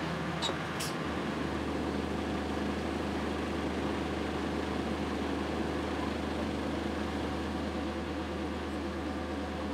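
Engine of a boat-mounted crane running steadily while it holds and swings a suspended lock gate, its low hum growing stronger about a second in.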